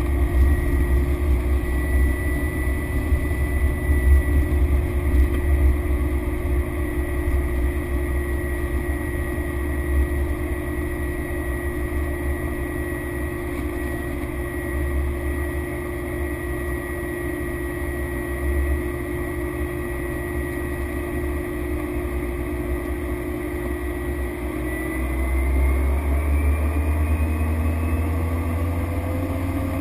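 Cessna Grand Caravan's single Pratt & Whitney PT6A turboprop engine and propeller running with a steady drone over a deep rumble. Near the end the pitch rises and it grows louder as power comes up.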